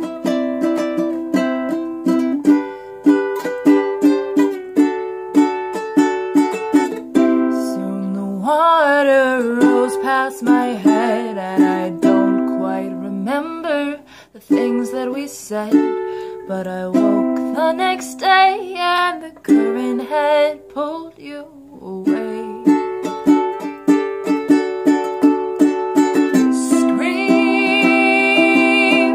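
Ukulele strumming chords in an even rhythm, with a woman's voice singing over it in stretches.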